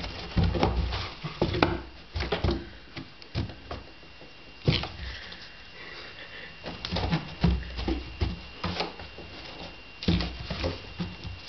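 Cats playing in and on a cardboard box: irregular bursts of thumps, scratches and scuffs of paws on cardboard, with short lulls between.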